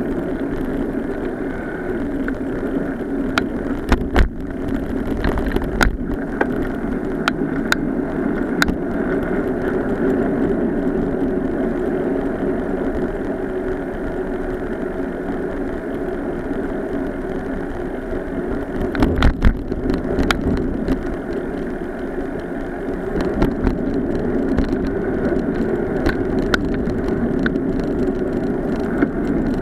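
Bicycle rolling along a paved path, a steady noise from the tyres and the moving bike. Occasional sharp knocks and rattles come in from bumps, with a cluster about two-thirds of the way through.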